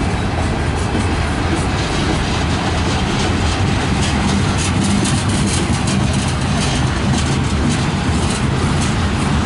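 Freight cars rolling past close by: a steady rumble of steel wheels on rails, with faint scattered clicks.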